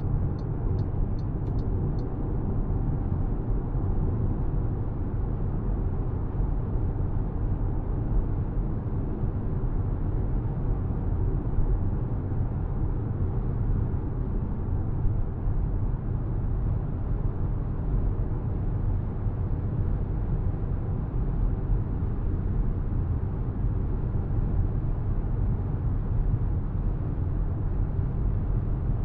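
A 2025 MG HS driving at a steady pace: a constant, low-heavy road and running noise with no changes in engine speed. A run of faint, evenly spaced high ticks sounds in the first two seconds.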